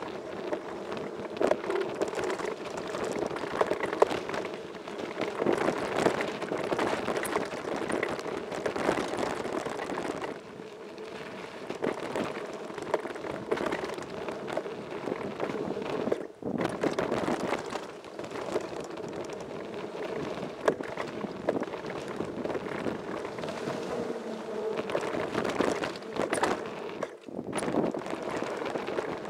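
Downhill mountain bike running fast over a loose gravel trail: a constant rush of tyre and gravel noise with frequent rattles and knocks from the bike over bumps, and wind on the microphone.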